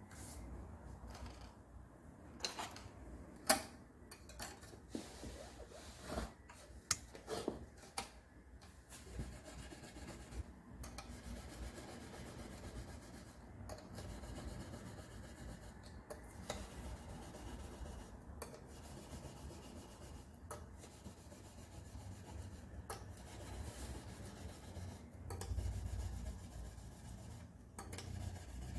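Hand sanding or filing during an acoustic guitar setup: a few sharp clicks and taps, then steady back-and-forth rubbing strokes for most of the time.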